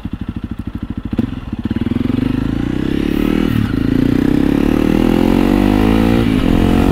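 Honda CRF300L's single-cylinder four-stroke engine through a Yoshimura RS-4 full exhaust system, pulsing at low revs and then accelerating. The revs climb, fall at an upshift about three and a half seconds in, and climb again to a second upshift near the end.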